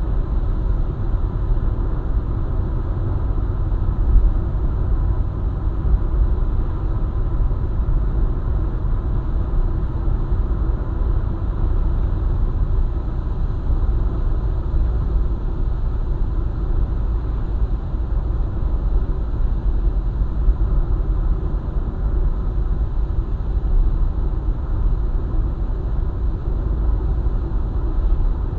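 A car driving on a highway: a steady, low road-and-engine rumble with no change in pace, with a faint steady whine running through it.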